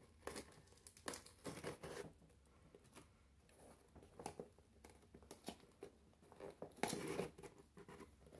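Scissors slitting the sealing tape on a cardboard mailer box, then the tape being peeled and torn off and the cardboard lid pried open: a string of short, faint scraping, tearing and rustling sounds, loudest near the end.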